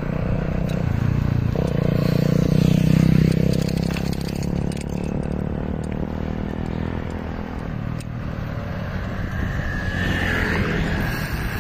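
A motor vehicle's engine running close by, loudest about three seconds in, over a steady low rumble.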